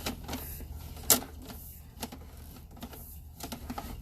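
Sewer inspection camera being pushed down a sewer pipe: irregular clicks and knocks of the push cable and camera head, with one sharper knock about a second in, over a steady low hum.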